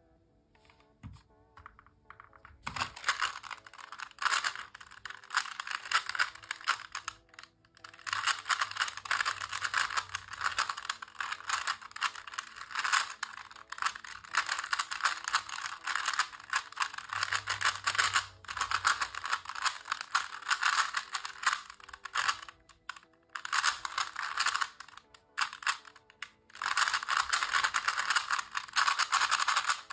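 Standard Rubik's brand 3x3 cube being turned fast in a timed speedsolve: rapid, continuous clacking of the plastic layers, starting about three seconds in and broken by a few short pauses. The cube turns in a way its solver calls clunky.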